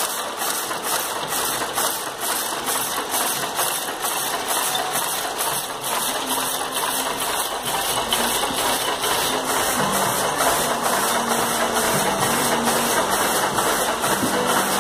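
Power loom with a four-colour weft selector, weaving steadily: a continuous mechanical clatter with an even beat of about three strokes a second, one for each pick of weft.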